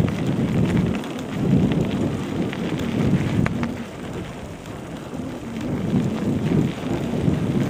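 Wind buffeting the microphone of a camera carried on a bicycle riding fast off-road, a low surging rumble with scattered clicks and rattles from the bike over rough ground. It eases for a second or two around the middle.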